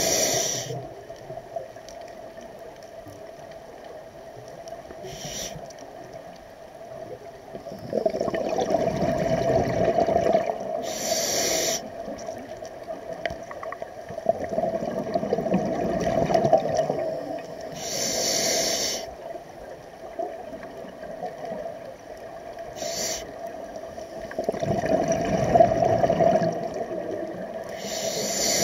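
Scuba diver breathing through a regulator underwater. A short hissing inhale comes every five to six seconds, each followed by a longer rush of exhaled bubbles.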